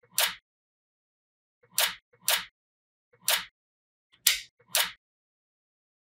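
Small magnetic balls clicking together as blocks of them are snapped onto a sheet of magnets: six sharp clicks in about five seconds, some in pairs half a second apart.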